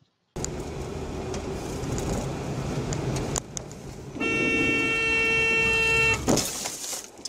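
Steady road and engine noise inside a moving car, then a car horn held for about two seconds on one steady tone, ending in a short sharp burst of noise.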